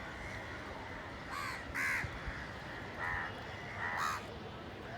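Crows cawing: four harsh caws spread across a few seconds, the second and the last the loudest, over a steady background hiss.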